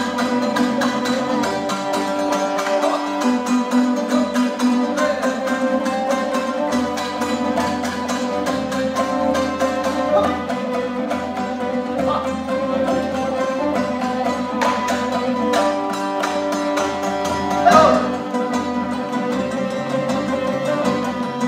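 Kazakh traditional folk ensemble playing: long-necked plucked lutes (dombras) strummed in a fast, driving rhythm together with a plucked zither and sustained string lines. One louder accent stands out near the end.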